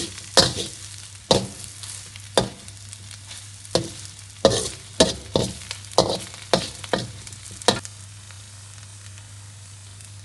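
Spatula scraping and turning glass noodles with minced pork and egg in a wok, about eleven quick strokes that stop around eight seconds in, over a faint sizzle.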